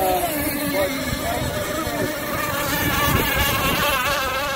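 Zenoah two-stroke gas engines of radio-controlled racing boats buzzing at high revs as the boats race past, the pitch wavering as the hulls skip over the chop.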